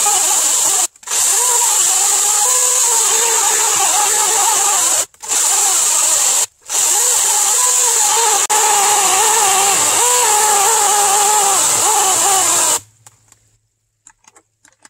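LiTHELi 40-volt 14-inch cordless electric chainsaw running under load, its chain cutting through a log, with a steady high whine that wavers in pitch as it works in the wood. The sound drops out briefly three times and stops abruptly about two seconds before the end.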